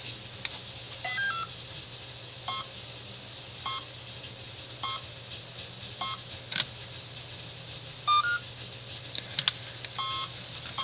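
Brushless motor beeping as a Swordfish 240 HV speed controller drives it: its power-up and throttle-setup beep sequence. There is a short rising chirp about a second in, then single beeps about every second, another rising chirp near the end and a further beep. A few sharp clicks fall between the beeps.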